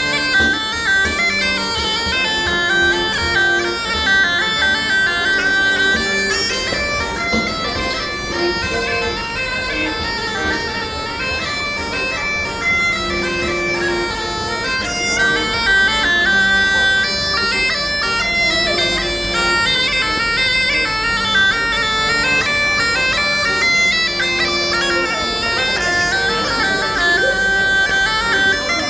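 Bagpipes playing a schottische dance tune, with the melody moving above a steady drone.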